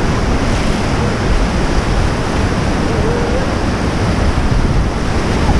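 Whitewater rapids rushing loudly and steadily around an inflatable river raft.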